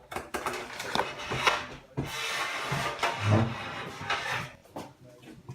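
Rubbing and scraping handling noise with a few small knocks, as the slime is put back in its container.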